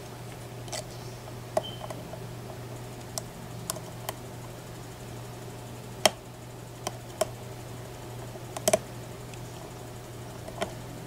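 Lock pick and tension wrench working the pins of a Mako M2 small-format interchangeable core: about a dozen small, irregular metallic clicks as pins are lifted and set during single-pin picking, the loudest about six seconds in. A steady low hum runs underneath.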